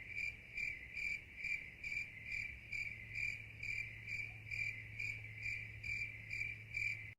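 Cricket chirping in a steady, even rhythm, about two to three chirps a second, over a faint low hum; it cuts off abruptly at the end.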